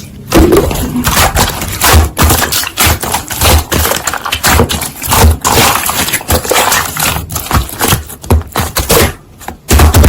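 Slime being squished and poked by hand, giving a fast, irregular run of sticky clicks and small air-pocket pops.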